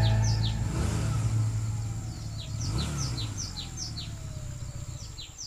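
The tail of the music fades out into outdoor ambience: a few vehicles passing, their pitch dropping as they go by, while small birds chirp again and again in quick falling notes.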